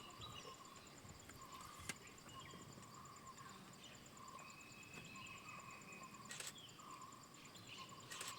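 Faint insects calling: a fast, even, high-pitched pulsing trill with a repeated warbling chirp lower down. Two sharp clicks, about two seconds in and again after six seconds.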